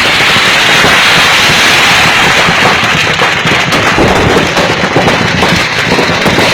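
Firecrackers going off in a dense, continuous crackle of rapid pops, loud throughout with no pauses.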